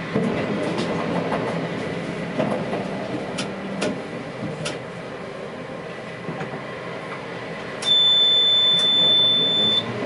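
Tatra T3S tram running along the track, heard from the cab: a steady running noise with a few sharp clicks from the wheels and rails. Near the end, a loud, steady high-pitched tone sounds for about two seconds and stops abruptly.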